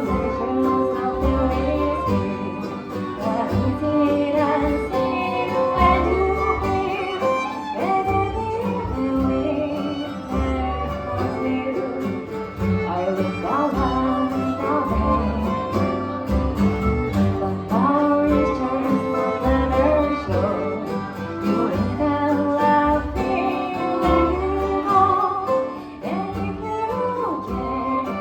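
Bluegrass band playing an instrumental break: a fiddle carrying the melody with gliding notes over acoustic guitar accompaniment and a steady low bass line.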